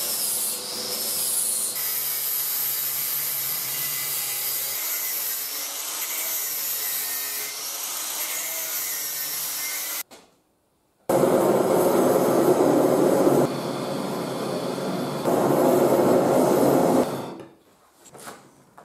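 Angle grinder's abrasive disc grinding flutes into a steel trapezoidal threaded rod to turn it into a tap, a steady grinding noise. After a second of silence about ten seconds in, a louder steady rushing noise runs for about six seconds, dipping briefly in the middle, as the tap is heated red-hot for hardening.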